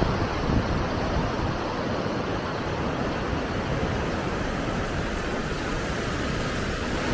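Steady rushing of river water spilling over the Fairmount Dam, an even wash of noise with no breaks.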